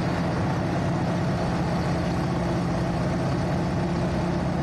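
North American T-6 Texan's Pratt & Whitney R-1340 nine-cylinder radial engine running at a steady drone, heard from inside the open-framed cockpit in flight with a rush of air noise.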